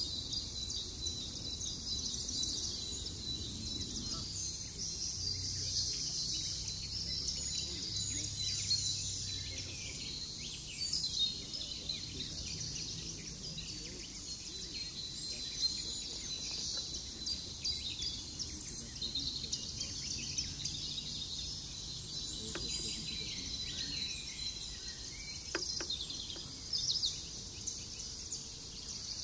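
Outdoor ambience of birds chirping and twittering continuously at a high pitch, over a low rumble.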